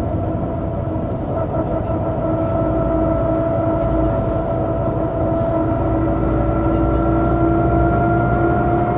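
1998 MAN NG 312 articulated bus under way, its engine and drivetrain running with a low rumble and a whine that slowly rises in pitch as the bus gathers speed.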